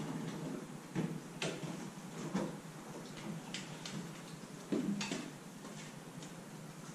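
Scattered faint clicks and knocks as a person climbs down off a compact tractor and walks across the pavement toward the garage, footsteps included. A faint low hum lies underneath and eases off.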